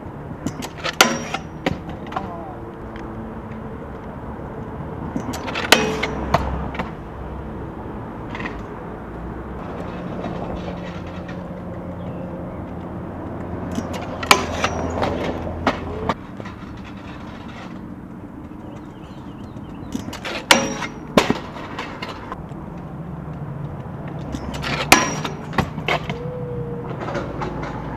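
Freestyle scooter riding at a metal handrail: the wheels roll on concrete, broken five times, a few seconds apart, by sharp clacks and clatter as the scooter strikes the rail and comes down on the pavement.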